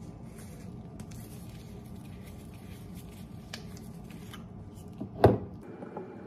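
Gloved hands handling a plastic dish-soap bottle: crinkly rubbing of the disposable plastic gloves on the bottle while its cap is worked open, then one sharp knock a little after five seconds in.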